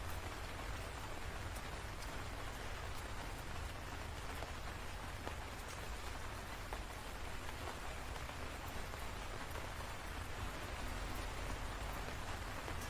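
Steady rain falling, an even hiss with scattered individual drop ticks and a constant low rumble underneath.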